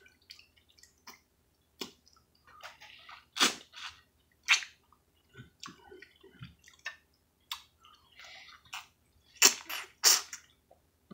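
Close-up wet eating sounds of a ripe mango being bitten and sucked from the hand: scattered smacks, slurps and chewing, with two of the loudest wet smacks near the end.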